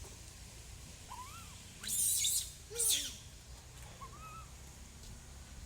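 A baby monkey giving a few short arching squeaks and coos, with two loud hissy noises about two and three seconds in.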